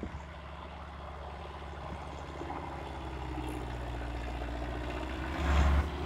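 Wheeled farm tractor's diesel engine running under load while ploughing, a steady hum growing slowly louder as it comes closer, with a louder low swell shortly before the end.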